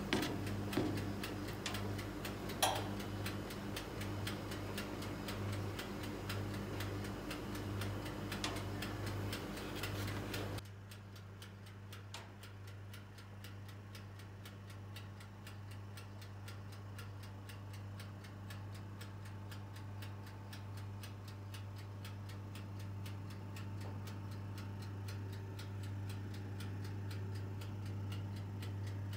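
Steady, even mechanical ticking like a clock's, over a low electrical hum. A single clunk comes about three seconds in, and the background noise drops noticeably about ten seconds in while the ticking carries on.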